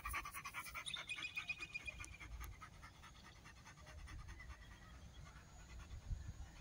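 Belgian Malinois panting quickly and evenly with her tongue out, the breaths coming about four to five a second, plainest in the first couple of seconds and then fading.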